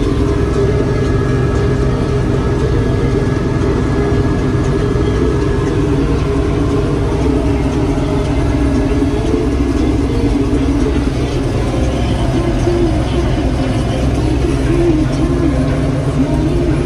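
Claas Dominator Mega 208 combine harvester running under load while harvesting, heard from inside its cab: a loud, steady engine and machinery drone.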